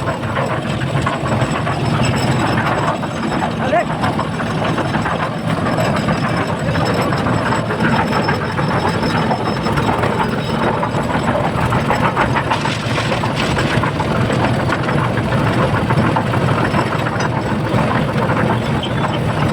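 A steady engine running, with indistinct voices.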